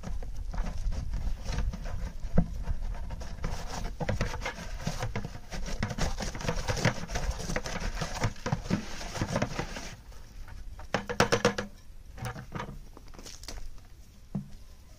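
Wet clay being scooped and worked by hand in a plastic bucket: a dense run of wet patting, clicking and scraping noises that thins out after about ten seconds, with a brief rapid rattle about eleven seconds in.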